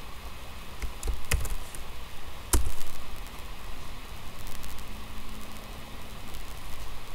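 Steady background hiss with a few sharp clicks from working a computer while switching windows and running a command: a pair about a second in and the loudest one about two and a half seconds in.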